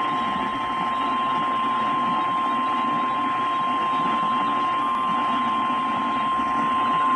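NOAA Weather Radio 1050 Hz warning alarm tone: one steady, unbroken beep over radio static. It is the alert signal that a warning message follows.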